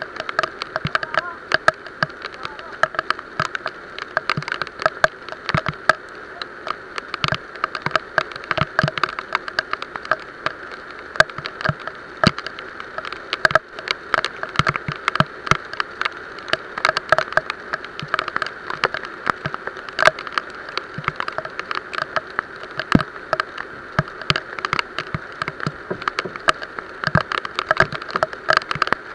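Heavy rain falling on the water and striking the wooden outrigger boat and the camera: a steady hiss with a dense, irregular scatter of sharp drop hits.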